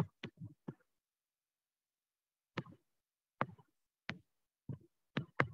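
Light taps of a stylus or pen on a drawing tablet or screen while a triangle is sketched: a quick run of four taps, a pause of nearly two seconds, then single taps every half second to a second.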